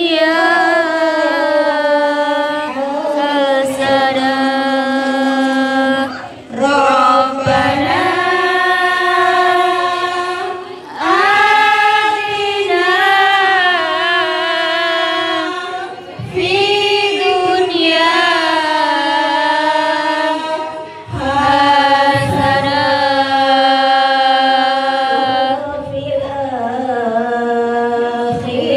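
Women's group singing a sholawat song in unison, led on a microphone, in long held phrases of about five seconds each with short breaks between them.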